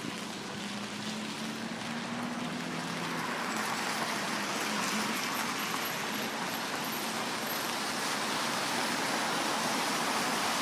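Traffic on a wet city street in the rain: a steady hiss of tyres and rain that grows a little louder after a couple of seconds, with a low hum in the first three seconds or so.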